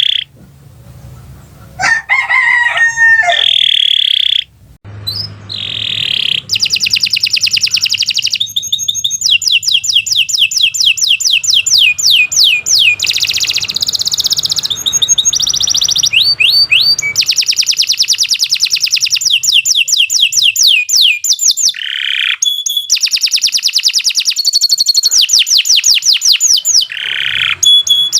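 Domestic canary singing long, fast trills, runs of quickly repeated high notes with short breaks between phrases. About two seconds in, a short lower call with a bending pitch comes before the song.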